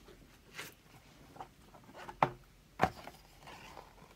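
A paper picture book being handled as its page is turned and it is lifted open: a brief brush of paper about half a second in, then two sharp knocks a little over half a second apart near the middle.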